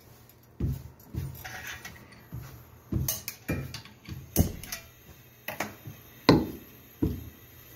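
Rolling pin rolling out a round of paratha dough on a board, knocking and thudding against it in an uneven series of strokes, roughly two a second.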